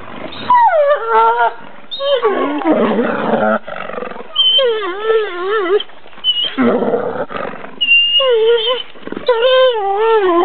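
Two gray wolves in a dominance scuffle: harsh snarling and growling alternating with long, wavering, high-pitched whines. It is a fight over alpha status between brothers.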